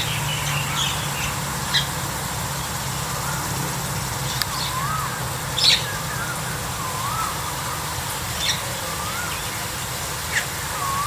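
Birds calling over a steady background: repeated short warbled notes every couple of seconds, and sharp, brief chirps in between, the loudest about halfway through.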